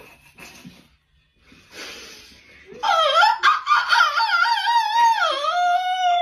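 A high-pitched, wavering squeal of a funny vocal sound, starting about three seconds in after a few soft breathy noises. Its pitch bends up and down and it holds on without a break.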